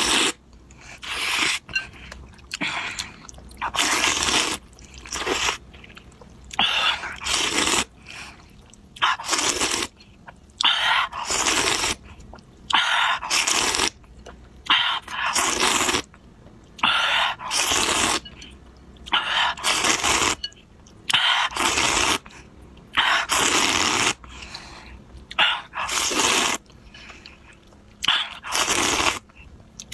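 Close-miked eating of noodles: repeated short bursts of slurping and chewing, about one every second or so, with brief quiet gaps between.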